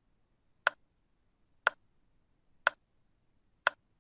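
Clock-tick sound effect ticking once a second, four sharp ticks, marking a countdown timer for answering a quiz question.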